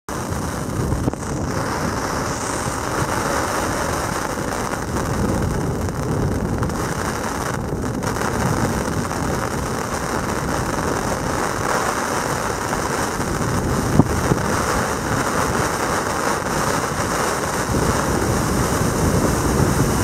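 Storm wind blowing hard and steadily.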